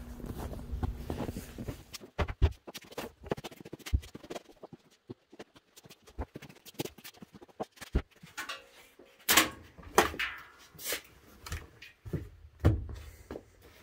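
A string of irregular knocks and clunks as heavy rusty metal parts are lifted off a top-loading washing machine and its lid is handled. The loudest clunks come in the last few seconds.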